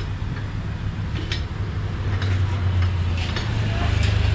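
A motor vehicle engine running with a steady low rumble that grows louder in the last second or so, with a few light metallic clinks over it.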